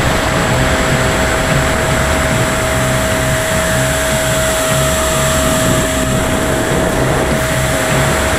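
E-flite 80 mm electric ducted fan F-16 heard from a wing-mounted camera in flight: the fan's steady whine under loud wind rush across the microphone.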